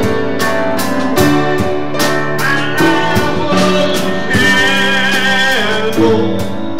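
Live church band music: an electric guitar playing over a steady beat, with a long wavering held note in the middle.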